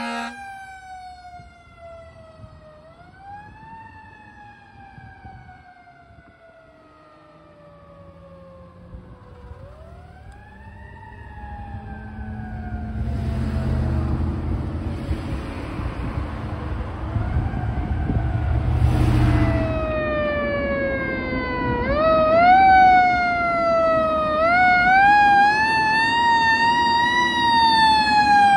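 Fire engine siren wailing in long cycles, each a quick rise followed by a slow fall lasting several seconds. It is faint at first and grows much louder in the second half, where the top of each cycle wavers. A low vehicle rumble with brief hissing comes in about midway.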